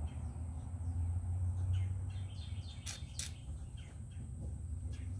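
Birds chirping in the background over a steady low hum, with two sharp clicks about three seconds in as the plastic RC axle housing is handled.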